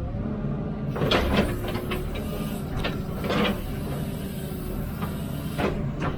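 Heavy diesel machinery running at a low steady rumble, with about five short scraping, clanking knocks spread through it.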